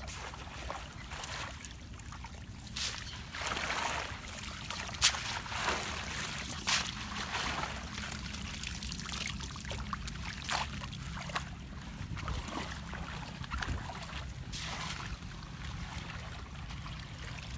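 Shallow muddy water splashing and trickling as a woven bamboo scoop basket (chhneang) is dipped and lifted, water running off and through its weave. The splashes come in scattered patches, with a few sharp clicks among them.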